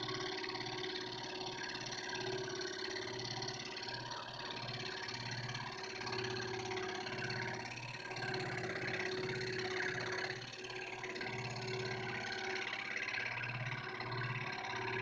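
Scroll saw running, its reciprocating blade cutting a butterfly fretwork pattern in wood: a steady motor hum with the cutting noise coming and going as the piece is fed and turned.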